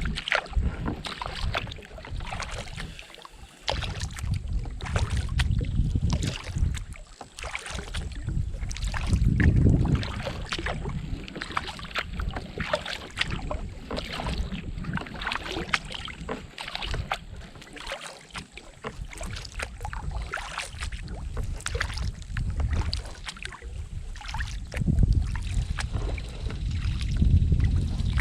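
Kayak paddling on a river: paddle blades dipping and splashing, with water dripping and trickling throughout. Wind buffets the microphone in low rumbling gusts a few times.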